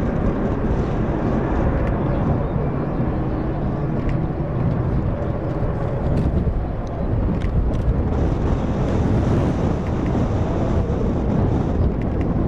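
Distant steady rumble of the three-engined McDonnell Douglas MD-10-30F's jet engines as the airliner waits lined up on the runway for takeoff.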